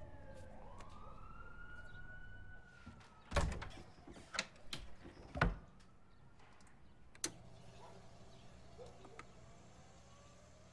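Record changer turntable working: a whine that rises and levels off, then several mechanical clunks and clicks as the 45 rpm single is dropped and the tonearm is moved, with one last click of the needle set down.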